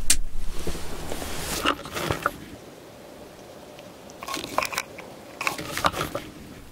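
Close handling noises: a sharp click right at the start, then two spells of crackling, crunchy clicks, one about two seconds in and another between four and six seconds in.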